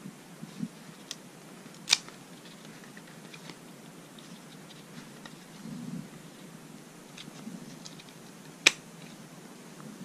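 A Corsair DDR3 laptop memory stick being pressed down into the memory slot of a 2011 MacBook Pro, with two sharp clicks about seven seconds apart as it snaps into the slot's retaining clips. Faint handling rustle and small ticks come in between.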